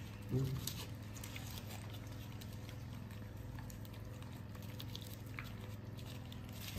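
Two puppies eating rice from a plastic tub, with quiet irregular chewing and smacking clicks over a low steady hum.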